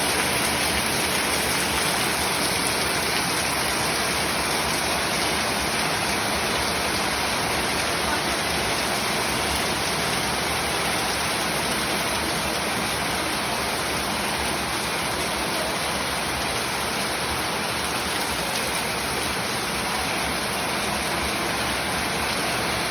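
Heavy rain pouring down with a steady, unbroken hiss.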